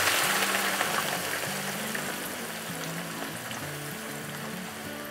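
Boiled sliced onions frying in hot oil, sizzling and bubbling hard, the sizzle easing off gradually. Background music plays underneath.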